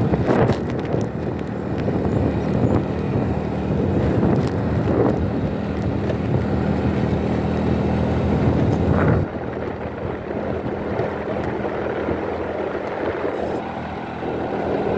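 Road traffic heard while riding: a vehicle engine runs steadily over road and wind noise, with a few sharp knocks in the first second. About nine seconds in the engine sound drops and gets quieter.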